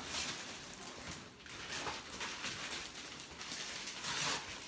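Christmas wrapping paper rustling and tearing as a present is unwrapped by hand, quiet, with a slightly louder stretch near the end.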